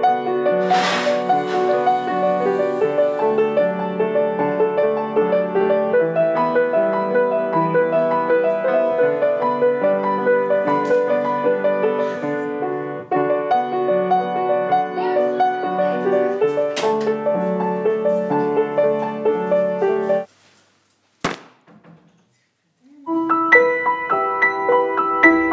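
Solo piano music with a repeating pattern of chords and notes. It cuts off about twenty seconds in, leaving a short gap broken by one click, and piano music starts again a couple of seconds later.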